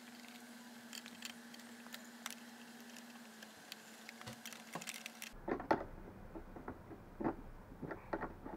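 Scattered clicks and knocks of hands screwing rear-view mirrors back onto an electric scooter's handlebars, with a few louder knocks in the second half.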